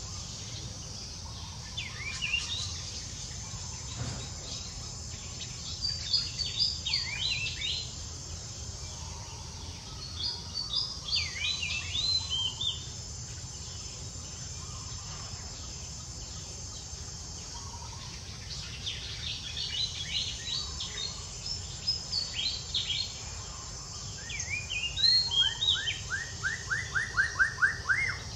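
Birds chirping in repeated bursts of quick, falling notes, with a fast run of short even notes near the end, over a steady high hiss.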